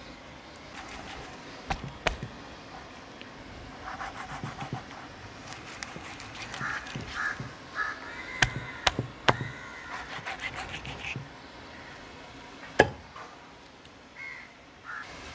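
Knife cutting a large trevally into steaks on a wooden log chopping block: a few sharp knocks of the blade striking the wood, the loudest near the end.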